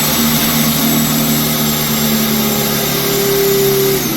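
A hammer drill in plain drilling mode, with no hammer action and turning forward, bores through wood with an HSS bit. Its motor runs at a steady speed while the bit cuts in easily.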